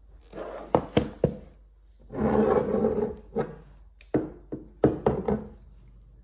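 Items handled on a wooden tabletop: a cardboard box and glass chutney bottles picked up and set down, giving three sharp knocks about a second in, about a second of rubbing and sliding in the middle, and several more single knocks near the end.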